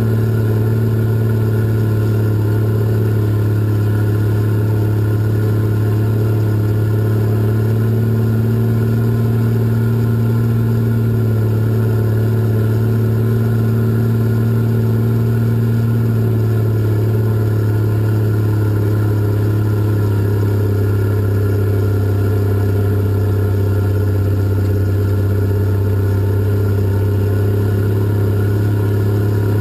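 Cat 627 scraper's diesel engine running steadily while hauling dirt, heard from the operator's cab. About two-thirds of the way through, the engine note drops slightly.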